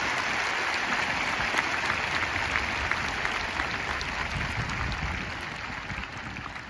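Stadium crowd applauding, a dense patter of clapping that thins out and fades over the last couple of seconds.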